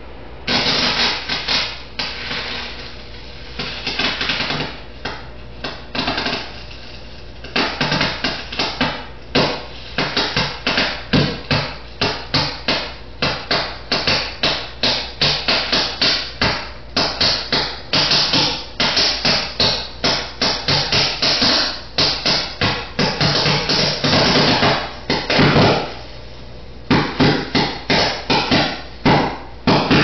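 Melting computer power cord popping and crackling as it burns and arcs on the workbench, in rapid irregular bursts of sharp cracks. The bursts start about half a second in, come in spurts at first, and then run almost without pause.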